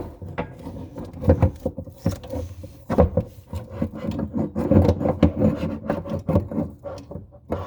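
Large wrench scraping and knocking against the faucet supply-line nut and fittings in the cramped space under a bathroom sink, an irregular run of rubs and clicks.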